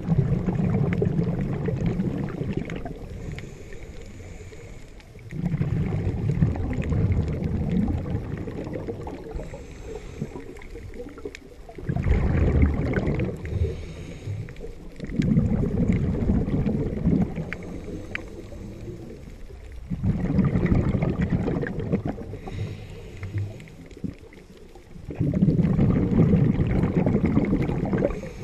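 Scuba regulator exhaust bubbles heard underwater: a burst of bubbling every four to six seconds, six in all, with quieter water noise between.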